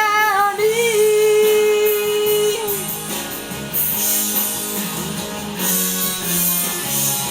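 Music: a sung note, held long, ends about a third of the way in, then a guitar-led instrumental passage plays.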